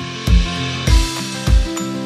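Background music with a steady kick drum beat, about three kicks, under plucked and held notes. A brighter hiss swells in about a second in.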